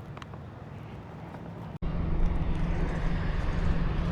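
CF Moto 650NK motorcycle's parallel-twin engine running steadily through its SC Project exhaust, a low, even hum that jumps louder at a sudden cut about two seconds in.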